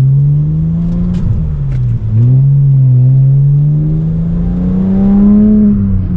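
Tuned twin-turbo BMW 335i straight-six with a full exhaust accelerating through the gears of its six-speed manual: the engine note climbs, drops sharply about two seconds in at a gear change, then climbs steadily again before easing off near the end.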